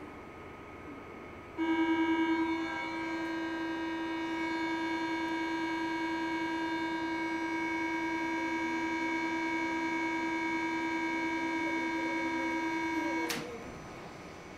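Door-closing warning buzzer of an SNCF RIB suburban train: a loud, steady tone starts about a second and a half in, louder for its first second, and holds for about twelve seconds. It cuts off near the end with a thump as the doors shut.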